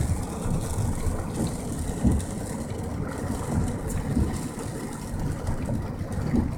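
Severe-storm wind buffeting the microphone, an irregular low rumble that swells in gusts, over a steady high hiss.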